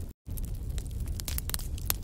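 Wood fire in a fireplace crackling and popping in quick, irregular snaps over a steady low rumble. The sound cuts out completely for a split second just after the start.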